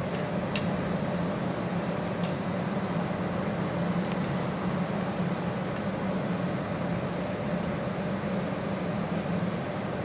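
Steady low mechanical hum of urban background noise, like a running engine or machinery, with a couple of faint ticks in the first few seconds.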